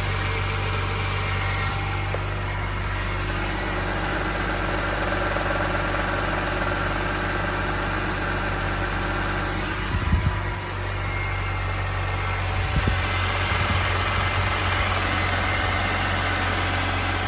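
2006 BMW 330xi's inline-six engine idling steadily after an oil change, with a couple of brief knocks about ten and thirteen seconds in.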